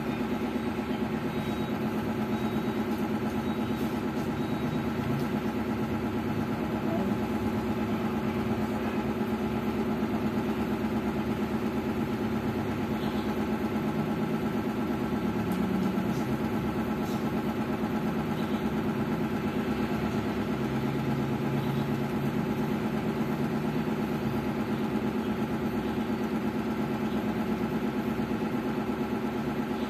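A steady motor hum with several constant tones that does not change.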